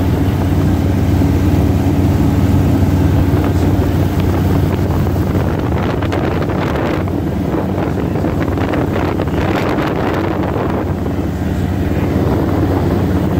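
Single-engine light airplane's propeller engine droning steadily in cruise, heard from inside the cockpit, with wind noise over the airframe.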